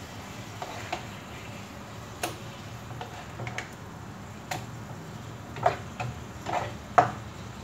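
Spatula tapping and scraping against a frying pan as salmon fillets are turned over: scattered light clicks, with a few sharper knocks in the last two seconds.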